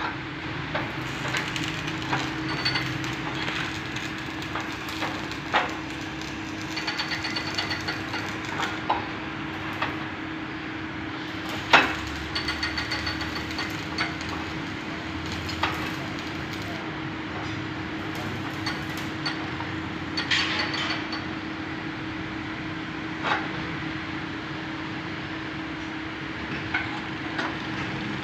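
Scattered metal knocks and short rattling runs from a tine cultivator's frame and linkage being worked by hand. A steady hum runs underneath, and one sharp knock about twelve seconds in is the loudest.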